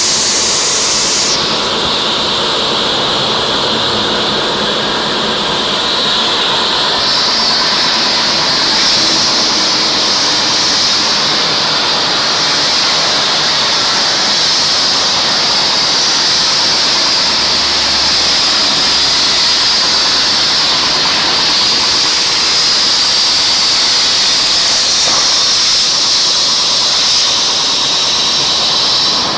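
Hypertherm Powermax plasma torch on a CNC table cutting through plate: a loud, steady hiss with a high-pitched whine over it.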